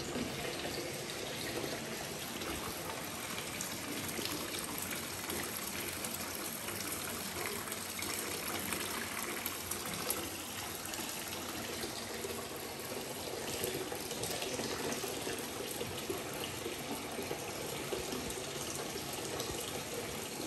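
Bath tap running steadily, a stream of water pouring into a shallow, filling bathtub.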